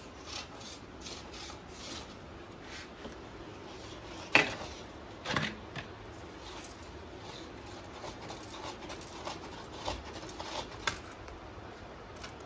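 Bare wire being handled and wound around a metal earth rod: scattered light clicks and rubbing of wire against metal, with two sharper clicks about four and five seconds in.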